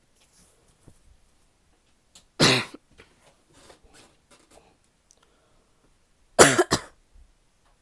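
A woman's barky, wet cough: one hard cough about two and a half seconds in, then a quick double cough near the end.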